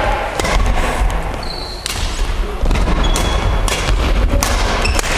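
Badminton rackets striking a shuttlecock in a rally: several sharp smacks about a second apart, echoing in a large gym hall, with a few brief high squeaks of court shoes on the floor.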